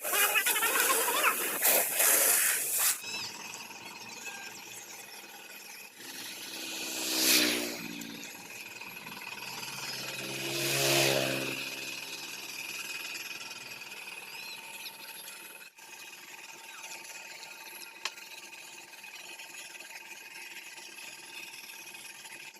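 A loud hiss for the first three seconds or so, then two motor vehicles passing by about seven and eleven seconds in, each engine note swelling and falling away as it goes past, over a steady background noise.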